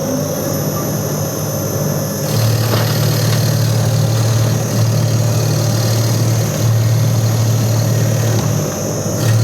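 Industrial meat shredding machine running steadily, its motor giving a low even hum that grows louder and fuller about two seconds in.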